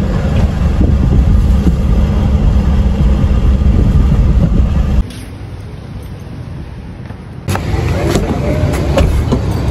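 Low rumble of a car's idling engine heard from inside the cabin, cut off suddenly about five seconds in. After a quieter stretch, louder car sounds return with a few sharp clicks from the door handle and door being worked.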